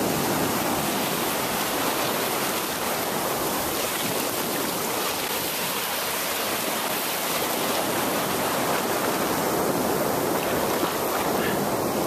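Ocean surf washing over the shallows: a steady, even rushing of breaking waves and foam.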